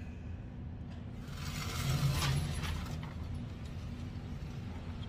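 Shooting range's motorized target carrier running along its overhead rail, bringing the paper target back to the shooting bench: a steady low mechanical rumble, with a rattling whir that swells about a second in and eases off again.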